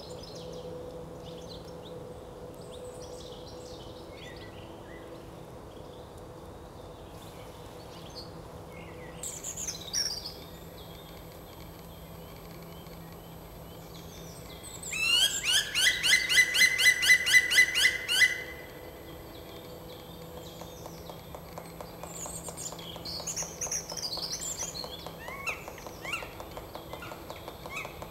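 Black woodpecker giving a loud, rapid run of ringing calls, about six a second for some three seconds midway through, over scattered chirping of small songbirds.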